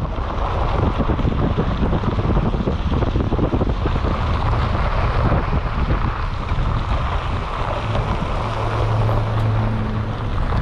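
A vehicle engine running with wind buffeting the microphone, a dense steady rumble; a low steady hum comes up near the end.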